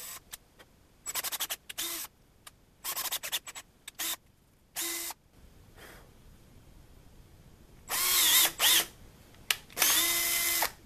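Cordless drill driving a 6-32 tap into a small aluminium part. The motor whirs in quick, short trigger blips through the first five seconds, then runs in two longer spells near the end.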